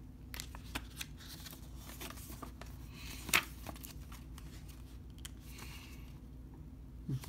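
Pages of a paper booklet being turned and handled: soft rustles and flicks, with one sharper page flick about three and a half seconds in.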